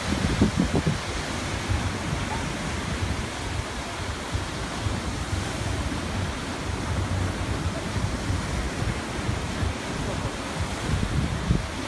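Surf washing onto a beach in a steady rush, with wind buffeting the microphone in a low, uneven rumble.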